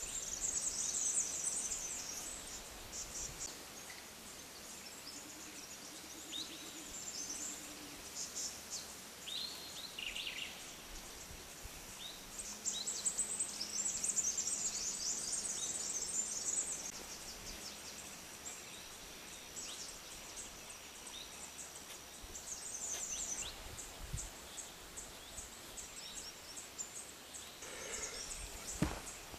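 Outdoor bird chirps and high trills, with a couple of short falling whistles about ten seconds in and a thin steady high tone through the middle, over a faint hiss of natural background.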